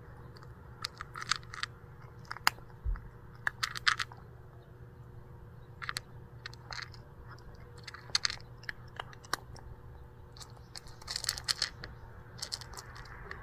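Cat crunching dry kibble from a bowl in irregular little bursts of crunching a second or two apart, picking at its food rather than eating steadily.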